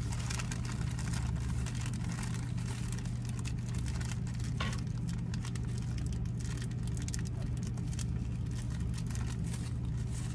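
Clear plastic parts bag crinkling and rustling under a hand in short, irregular bursts, over a steady low hum.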